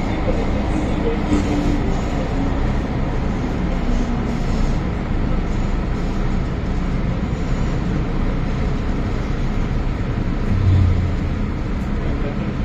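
Cabin noise of an MTR M-Train electric multiple unit running through a tunnel: a steady, loud rumble of wheels on rails and running gear, with a brief louder low hum near the end.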